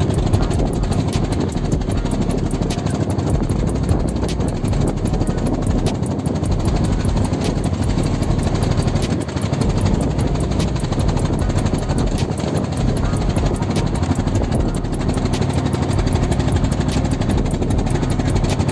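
Small fishing boat's engine running steadily while the boat is under way, with the rush of water and wind over it.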